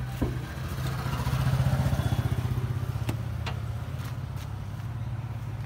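Diesel engine of a Tata 1210 D truck idling with a steady low pulsing, swelling a little louder about two seconds in and then settling back.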